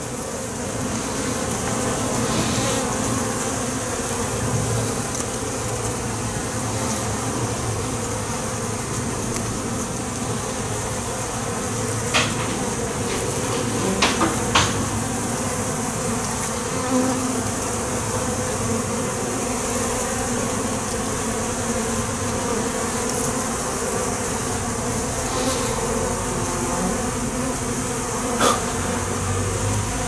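Honeybee colony buzzing steadily over the open hive's frames, with a few short sharp clicks around the middle.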